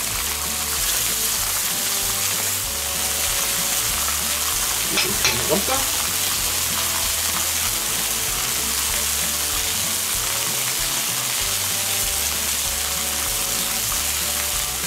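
Beef burger patties and bacon frying on a steel griddle plate over a wood fire, a steady sizzling hiss.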